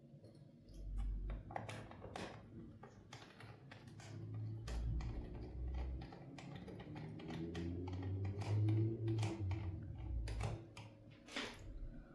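Irregular plastic clicks and taps of hands and small screwdrivers working on a Lenovo V155 laptop being put back together, with a few dull bumps against the work surface.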